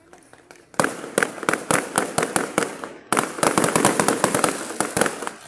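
Fireworks going off in a rapid crackling barrage of sharp bangs. The barrage starts suddenly about a second in and breaks briefly near three seconds before it picks up again, louder.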